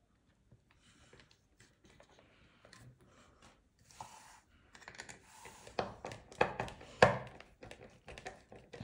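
Hands working on the opened plastic chassis and small circuit boards of a Beoplay S3 speaker: a run of sharp clicks and knocks, sparse at first, growing busier and louder in the second half.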